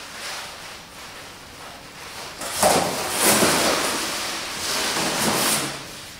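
Cardboard box and protective wrapping rustling and scraping as a round mirrored glass tabletop panel is pulled out of its packaging, loudest from about two and a half seconds in until shortly before the end.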